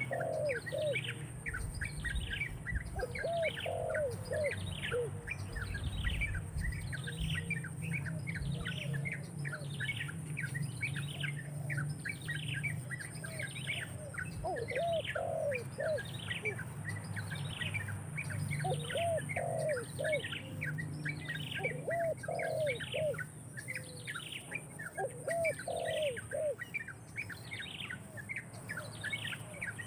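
Birds calling: a sharp, downward-sliding call repeated steadily about one and a half times a second, with lower, short arching notes coming in small clusters every few seconds. A steady high-pitched hiss runs underneath.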